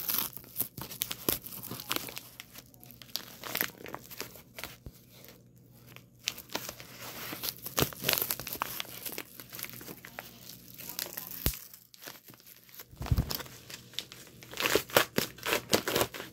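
Plastic wrapping on a VHS tape being crinkled and torn off by hand, irregular crackling with louder tearing spells. A dull thump about thirteen seconds in.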